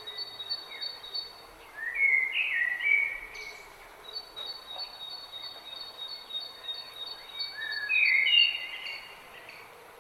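Several songbirds singing over a steady rush of flowing river water: one bird repeats a rapid high note, about six a second, while louder phrases of song come about two seconds in and again near the end.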